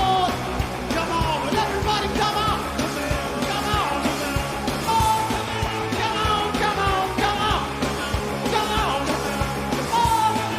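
Live garage rock band playing loud, with singing and yelled vocals over a steady drum beat.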